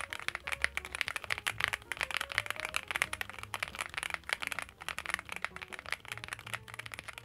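Continuous fast typing on a Cupid-65 65% gasket-mount custom mechanical keyboard: a dense, even stream of key clacks.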